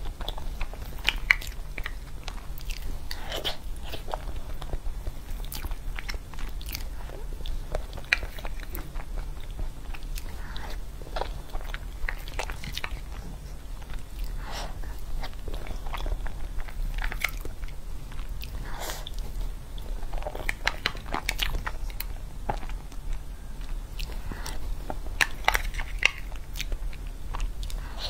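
Close-miked eating of a soft cream cake: wet chewing and lip smacks, with a metal spoon scraping and clicking in a plastic cup, heard as a string of separate short clicks and smacks over a low steady hum.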